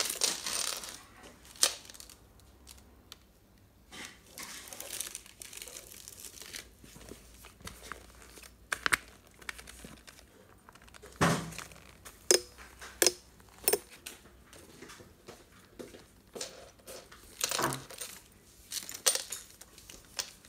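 Clear plastic bag and wrapping crinkling and rustling as a leather handbag is handled and turned over on it, with a few sharp clicks and knocks, the loudest about eleven to fourteen seconds in.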